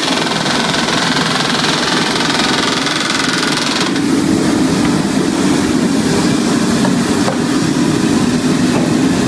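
Pneumatic rivet hammer rattling continuously, driving hot rivets into steel hull plating. The sound shifts fuller and lower about four seconds in.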